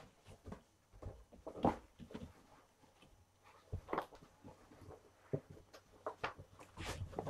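Kittens giving a few short mews amid scattered light knocks and rustles of their moving about.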